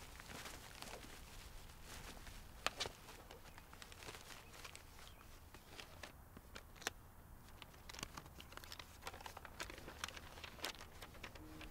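Black plastic garbage bag rustling and crinkling as it is rummaged through, with a few sharp clicks, then a paper manila envelope being handled and opened.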